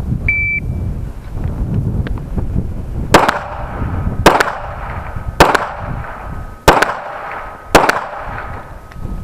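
A shot timer's short high start beep, then five 9mm pistol shots from a Smith & Wesson M&P, fired about a second apart.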